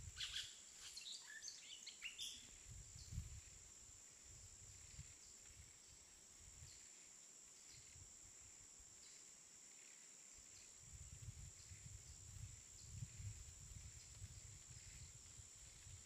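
Faint light wind through a snowy forest, gusting against the microphone in low rumbles at the start and again through the second half. A few faint high bird chirps in the first couple of seconds.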